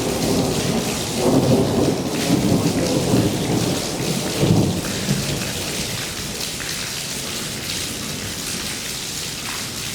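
Thunder rolling and rumbling for the first half, loudest twice, over steady heavy rain; the rumble fades about five seconds in, leaving the rain hiss.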